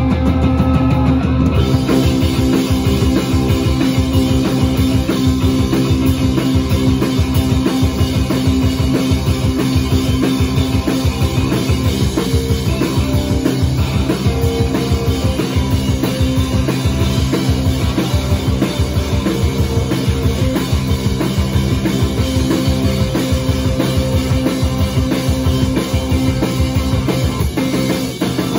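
Live rock band playing: electric guitar and bass guitar over a drum kit keeping a steady, driving beat.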